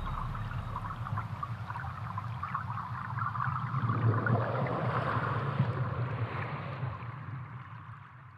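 Designed water soundscape: churning, bubbling water over a low rumble. It swells about four seconds in and then fades out toward the end.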